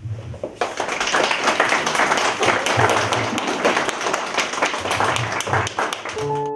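Audience applauding, dense hand clapping from a crowd that starts about half a second in.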